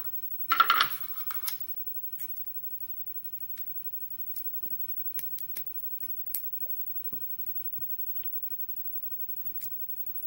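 Small metal lock parts and tools being handled while a Schlage lock cylinder is taken apart. There is a short rattling clatter near the start, then scattered light metallic clicks and ticks.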